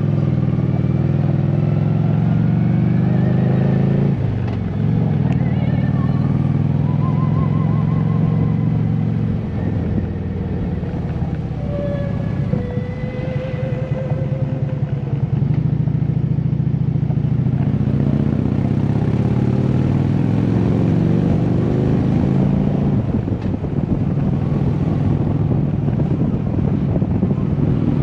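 Harley-Davidson V-twin motorcycle engine running under way on a mountain road. The throttle eases off briefly about four seconds in and again in the middle, then the engine pulls strongly again through the second half. Wind rush grows on the microphone in the second half.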